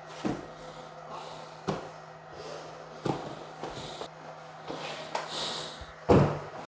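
Scattered sharp knocks and thumps about every second and a half, the loudest one near the end, over a steady low hum, with a breathy puff about five seconds in.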